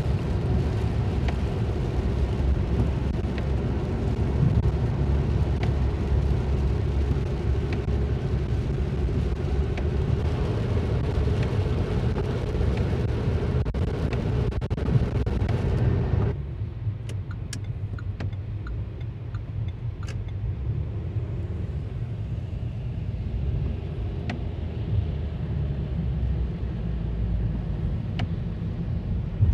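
Inside a car driving on a wet highway in rain: steady tyre hiss on the wet road over a low engine and road hum. About halfway through it drops suddenly to a quieter, duller cabin hum with a few faint ticks.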